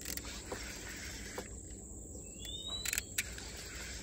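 Faint outdoor background with a few small clicks and one short rising chirp about two and a half seconds in.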